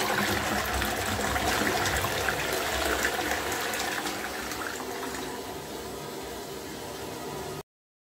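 A 2015 Lecico Neon close-coupled toilet flushing from its 6-litre push-button cistern: water rushing into the bowl and draining, easing off gradually and cut off suddenly near the end. The flush is very weak, which the owner says could be worn cistern fittings or a rim spreader caked in limescale.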